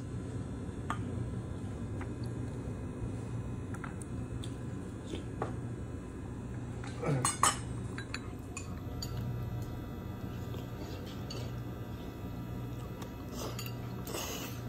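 Metal fork tapping and scraping against a plate in scattered light clinks, the loudest a little past halfway, over a steady low hum.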